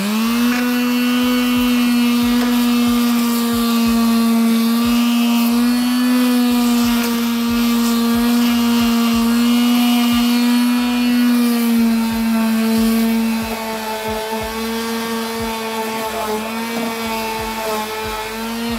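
Electric palm sander (a small triangular detail sander) running against a chalk-painted wooden table leg, sanding through the paint to distress the edges. Its motor comes up to speed right at the start, runs at a steady pitch, is a little quieter in the second half, and winds down at the end.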